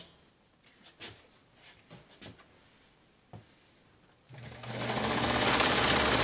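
Kenmore Zig Zag sewing machine (model 158.17501) starting about four seconds in and running steadily, stitching through denim with a fast, even needle rhythm and a low motor hum. Before it starts there are a few light clicks as the fabric is set in place.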